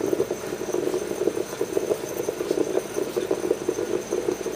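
Stovetop moka pot sputtering and gurgling steadily as steam and coffee spit from its spout. The water in the bottom reservoir is nearly used up, marking the end of the brew.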